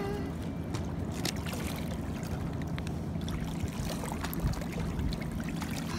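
Small waves lapping on a pebbly river shore, with a steady low rumble of wind on the microphone and a few light clicks.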